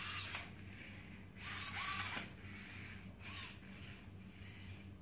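Robi humanoid robot's servo motors whirring in short bursts as it walks backward, one burst per step: near the start, about a second and a half in, and briefly at about three seconds. Each burst is a whine that rises and falls in pitch.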